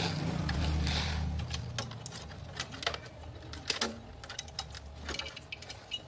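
Scattered small clicks and rustles of wire connectors being worked onto a refrigerator compressor's three terminal pins by hand, over a low rumble that fades after the first second or two.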